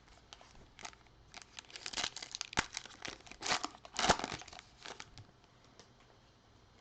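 The plastic wrapper of a Contenders football card pack being torn open and crinkled by hand. A run of crackling starts about a second in, is loudest in the middle, and dies away around five seconds in.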